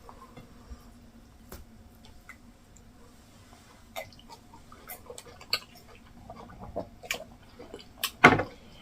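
Quiet eating sounds: scattered small clicks and mouth sounds of someone chewing food, with a louder knock-like sound near the end.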